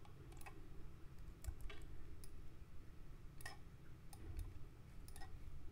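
Quiet, irregular clicks of a computer mouse and keyboard during spreadsheet data entry, about ten over a few seconds, with a low steady hum underneath.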